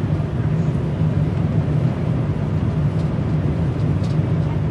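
Steady low hum of a car cruising at highway speed, engine and tyre-on-road noise heard from inside the cabin.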